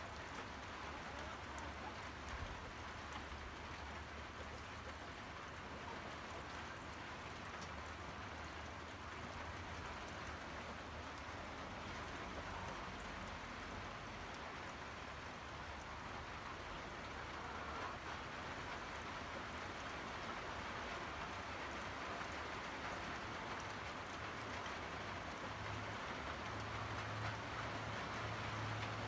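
Steady rain falling, an even hiss, with a low rumble coming up near the end.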